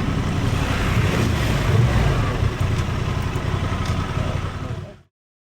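Honda Transalp 750's parallel-twin engine running, with a steady rumble under the ride noise, which fades out quickly about five seconds in.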